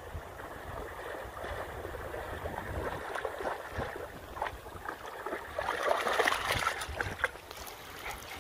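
Shallow creek water running and rippling, with a dog splashing as it wades through it; the splashing gets louder a little past the middle.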